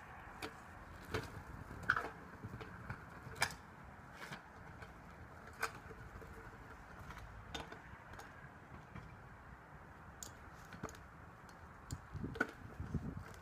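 Kick scooter ridden on tarmac: irregular clacks and knocks of the deck, wheels and the rider's feet, growing louder near the end as it comes close.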